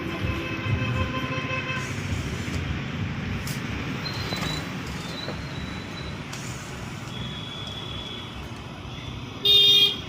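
Street traffic rumbling steadily, with vehicle horns: one horn sounding for about the first two seconds and a short, loud horn blast near the end.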